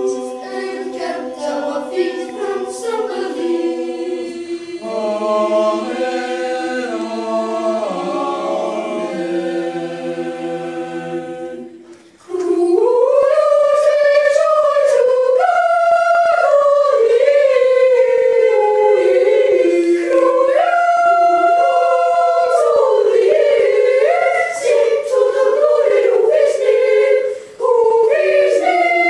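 A boys' choir singing a cappella, several voices holding chords. The singing breaks off briefly about twelve seconds in and comes back louder with a moving melody.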